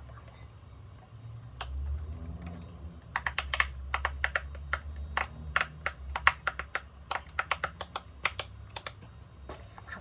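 Silicone pop-it fidget toy having its bubbles pressed one after another: a quick run of sharp little pops, about four a second, starting about three seconds in.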